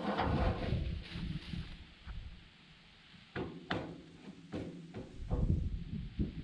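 A few sharp knocks and clunks, about four in the second half, over low uneven handling noise.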